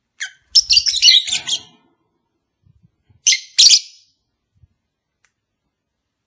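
Lovebirds calling in high-pitched chirps: a quick chattering run of calls in the first two seconds, then a shorter double call a little past the middle.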